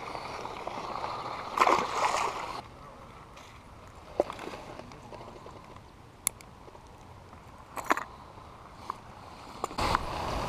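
A small largemouth bass released back into the pond with a brief splash, followed by a few light clicks of lures and a snap clip being handled over a plastic tackle box.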